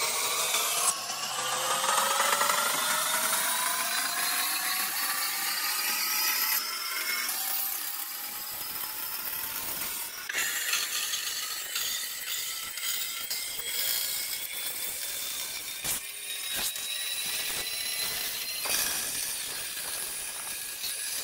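A power tool working wood: its motor whine climbs steadily in pitch for the first several seconds, then gives way to a rougher, noisier cutting sound with scattered knocks.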